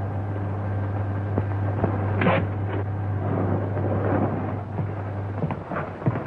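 Steady low hum and hiss of an old film soundtrack, with a sharp knock a little over two seconds in and a few lighter knocks near the end.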